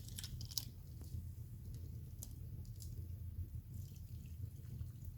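Tea being poured into a cup: faint liquid trickling with a few light clicks.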